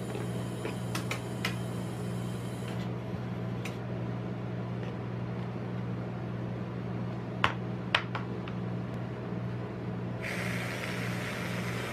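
Steady low hum under a few light scraper clicks, with two sharp metal taps about half a second apart past the middle. Near the end an aerosol can sprays topping onto rolled ice cream, hissing for about two seconds.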